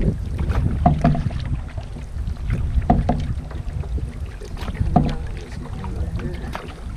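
Canoe paddle strokes in the water, one about every two seconds, over a steady low rumble of headwind on the microphone.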